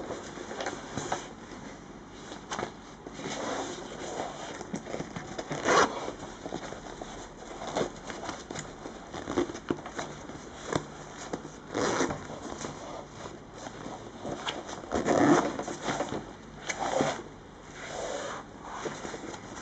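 An Olympus camera backpack being handled and opened: fabric rustling and scraping in irregular strokes, with zippers being worked.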